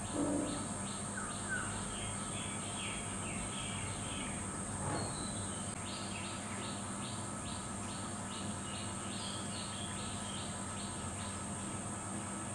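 Birds chirping in quick runs of short notes, about three or four a second, over a steady high insect buzz.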